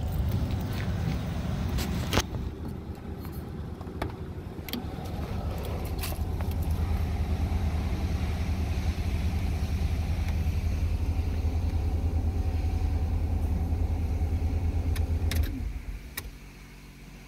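Ford Aerostar's 4.0-litre V6 idling steadily, with a few sharp clicks in the first several seconds. The engine is switched off about fifteen and a half seconds in.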